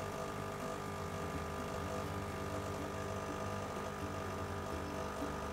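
Espresso machine's pump humming steadily while a shot is brewing.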